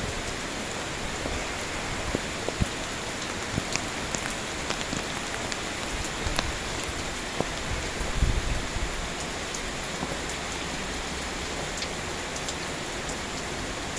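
Steady heavy rainfall, with scattered sharp taps of drops landing close to the phone. A brief low thump about eight seconds in.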